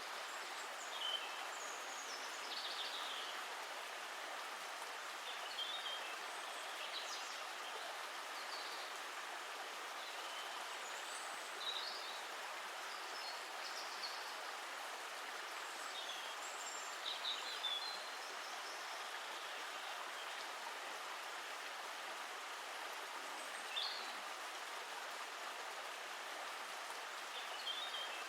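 Steady rushing of a flowing stream, with birds chirping briefly now and then over it.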